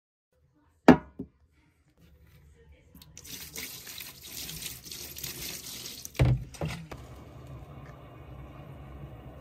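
Small washing machine starting a cycle: two sharp clicks about a second in, water running in with a hiss for about three seconds, then two thumps and the machine running with a steady low hum.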